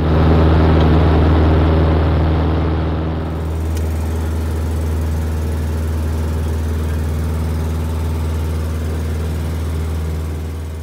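Piston engine and propeller of a Jodel Mascaret light aircraft at climb power just after takeoff, heard from inside the cockpit: a loud, steady drone. It drops slightly in level about three seconds in.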